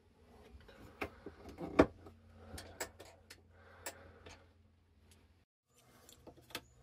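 A run of sharp clicks, the loudest about two seconds in: circuit breaker switches on a camper van's 12 V electrical panel being switched off to isolate the system.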